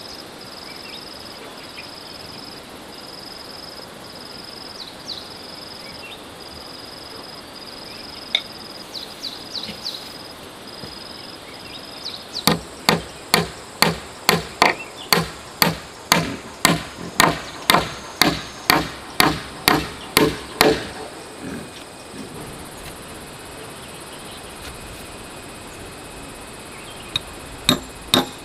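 Hammer blows on wood while building a fence: a run of about twenty ringing strikes, some two a second, starting about halfway through and stopping after roughly eight seconds, then starting again near the end. Before the hammering, an insect keeps up a steady pulsing high call.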